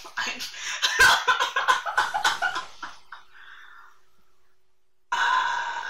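People laughing in a burst of quick pulses that dies away by about four seconds in, with a sharp knock about a second in; another loud burst starts near the end.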